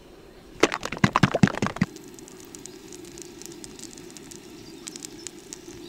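Pancakes sizzling and crackling in a frying pan. There is a run of sharp crackles and clicks in the first couple of seconds, then a steadier sizzle over a low hum.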